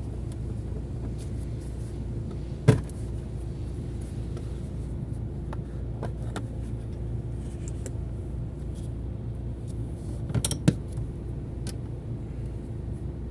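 A vehicle's engine idling steadily, with one sharp knock about two and a half seconds in and a quick cluster of clicks and knocks around ten seconds in.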